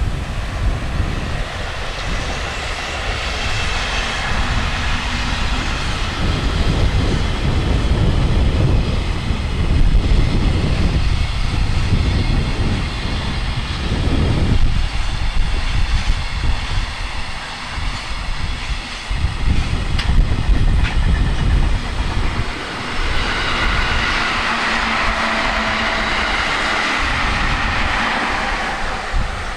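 Freight train hauled by a JR Freight electric locomotive passing close by: a steady heavy rumble of wagons along the track with irregular clatter of wheels over the rail joints, easing off near the end.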